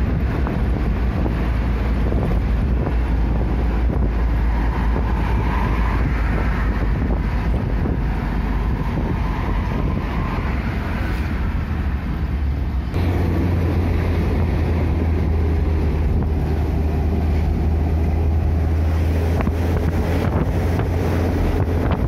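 A vehicle's engine and road noise heard from inside a moving vehicle: a steady low rumble with wind buffeting the microphone. About thirteen seconds in, the low hum abruptly shifts higher and louder.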